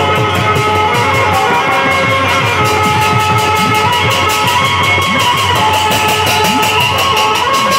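Loud amplified instrumental music from a bhajan band, with no singing: a keyboard melody of held notes over fast, even percussion strokes and drum beats whose low note bends upward.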